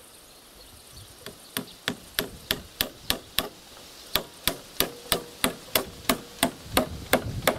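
A hammer driving nails into a wooden log beam: steady, evenly spaced blows, about three a second, starting about a second in, with a short break about halfway.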